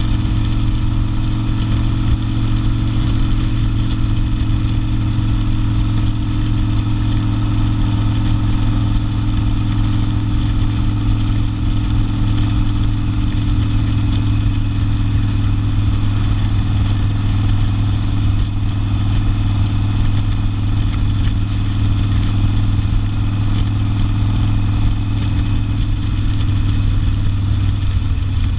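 Harley-Davidson Sportster's air-cooled V-twin with open exhaust, running steadily at an even engine speed with no revving.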